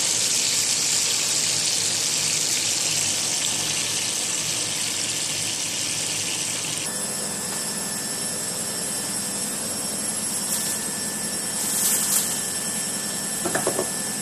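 Fish frying in hot oil in a pan, a steady sizzle that cuts off about seven seconds in. After that comes a steady background hum with a few light knocks and clatters as things are handled on the counter.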